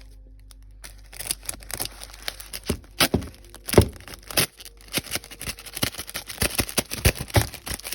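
Taped packaging around a Lego set being handled and picked at one-handed: a dense run of irregular crinkles, crackles and small knocks starting about a second in, the sharpest knock a little under four seconds in.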